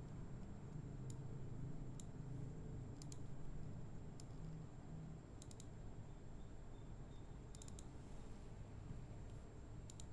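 Computer mouse clicking in scattered single, double and triple clicks every second or two, over a low steady hum.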